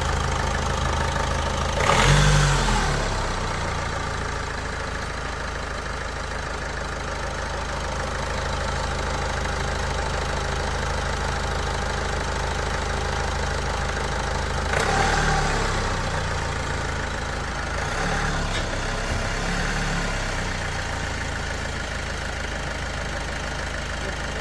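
Opel Insignia 1.6 CDTI four-cylinder diesel engine idling steadily, with two brief louder swells, one about two seconds in and one about fifteen seconds in.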